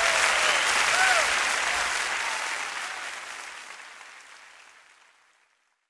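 Audience applauding after a live jazz vocal performance, with a few cheers early on, the whole fading out steadily to nothing near the end.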